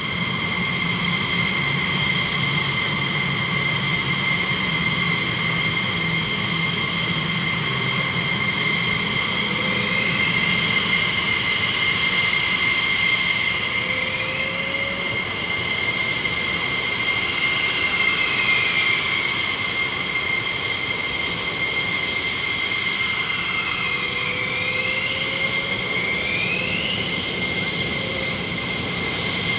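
F-16 Fighting Falcon jet engines running with a steady, high-pitched whine and its overtones. From about ten seconds in, tones rise and fall over the whine again and again.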